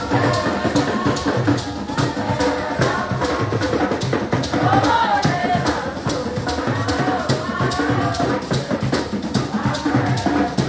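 Music with drums and a shaker keeping a fast, even beat, about four strokes a second, with a voice singing over it in the middle stretch.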